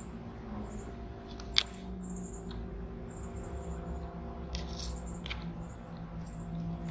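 Outdoor backyard ambience: a steady low hum under faint, high, repeated chirps, broken by a few sharp clicks, the loudest about a second and a half in.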